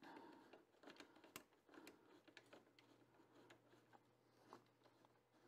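Near silence with faint, scattered small clicks and ticks of a hand tool working the screws that fix a 3D printer's gantry to its frame. A faint low hum comes in about two seconds in.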